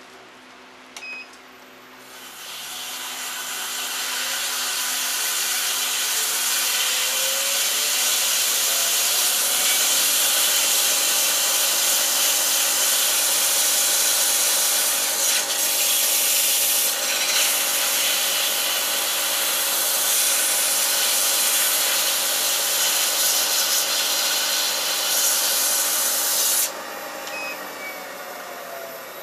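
240-grit sandpaper held against a wooden yoyo spinning on a Record Power lathe: a steady sanding hiss that starts about two seconds in and stops abruptly near the end. Under it runs the hum of the lathe motor, rising in pitch as the lathe speeds up early on and falling as it slows near the end.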